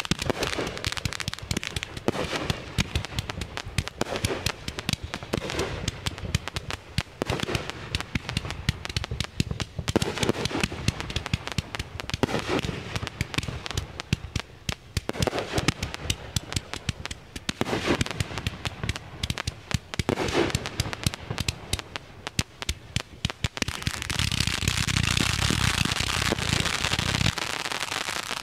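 Consumer aerial fireworks going off close by: a rapid, uneven run of launches, bangs and crackles from shells bursting overhead. Near the end it thickens into a louder, continuous crackling barrage.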